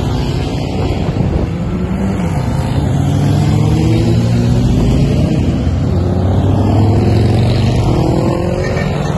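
A stream of motorcycles riding past one after another, their engines rising and falling in pitch as each goes by.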